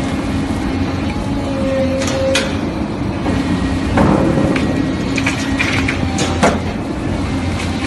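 Excavator diesel engine running steadily under hydraulic load while its hydraulic scrap shear works on a steel beam, with sharp metallic cracks and creaks about two and a half and four seconds in and a cluster of snaps between about five and six and a half seconds in.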